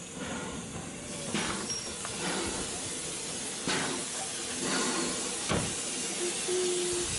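Steam hissing from LMS Ivatt Class 2MT tank locomotive 41298 as it draws slowly alongside the platform, getting louder as it comes closer, with a few irregular bursts.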